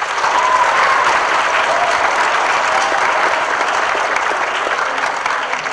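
Audience of schoolchildren applauding, breaking out all at once and easing off slightly near the end.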